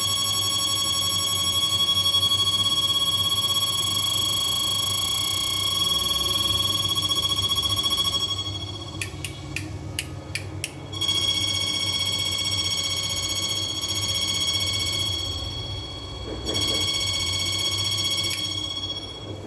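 Electric shock-fishing machine's MOSFET inverter running under load with its leads in salt water, giving a loud, steady high-pitched electronic whine with overtones. The whine cuts out about 8 seconds in, a run of about five sharp clicks follows, then it starts again, dips briefly and stops near the end.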